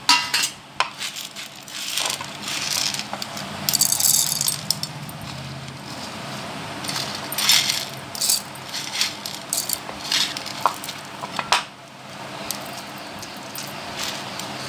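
Dry-roasted lentils, peanuts and coriander seeds dropping into a stainless-steel mixer-grinder jar, rattling and clinking against the steel in an irregular run of small clicks and rustles.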